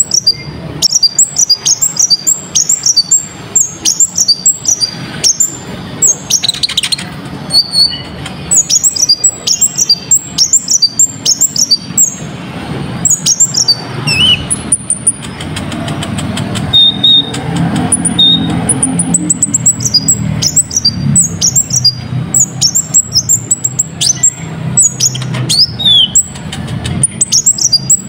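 Konin (kolibri ninja), a small sunbird, singing a fast, loud run of sharp high-pitched chirps and short repeated phrases, with a few thin whistled notes, over a steady low hum.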